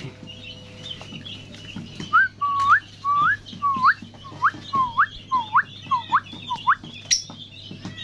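A run of about nine short whistled notes, each dipping then flicking sharply upward, coming faster toward the end, over faint high bird chirping.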